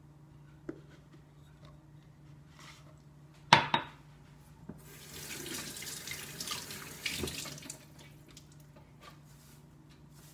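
A sharp clatter about three and a half seconds in, then a kitchen tap running into a sink for about three seconds.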